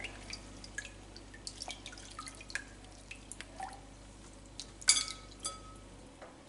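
Water dripping and trickling back into a glass bowl of ice water as handfuls of blanched spinach are lifted out and squeezed. Scattered small drips, with a couple of louder plinks about five seconds in.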